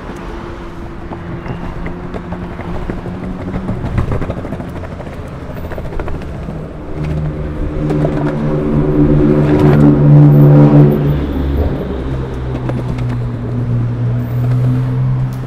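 Longboard wheels rolling over pavement slabs with a rough rumble and occasional clicks at the joints, over steady road traffic. A vehicle engine grows louder to a peak about ten seconds in and then eases off, with a lower engine tone holding on near the end.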